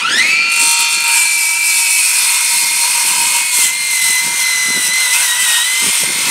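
Ryobi 18-volt One+ brushless 7¼-inch circular saw starting with a quick rising whine, then running steadily as it rips lengthwise through old, dried-out pressure-treated lumber. The whine sags a little in pitch under load about five seconds in.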